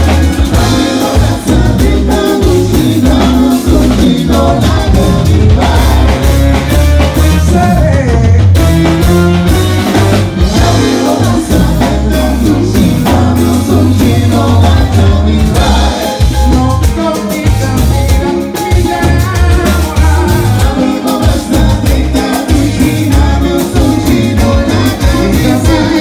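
Live band playing: drum kit, keyboards and electric guitar over a heavy bass line, with a woman singing.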